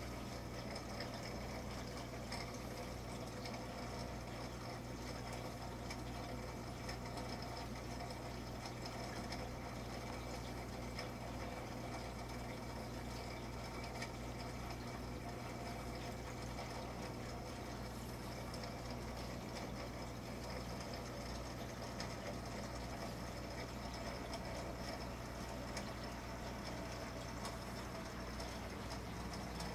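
Steady hum of aquarium filters (a Fluval FX5 canister and an Aquaclear 110 hang-on) running, with a soft watery hiss.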